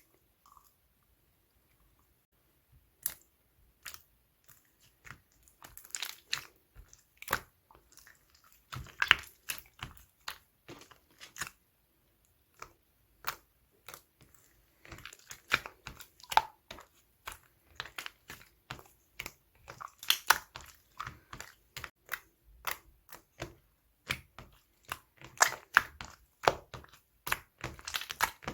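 Purple slime being squeezed and pressed by hand, making irregular sharp clicks, pops and crackles, sparse for the first few seconds and then coming thick and fast.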